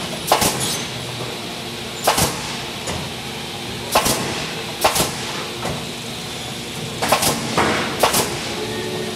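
Pneumatic nail guns on an automated component-nailing machine firing into lumber: sharp single shots every second or two over the steady hum of the running machine.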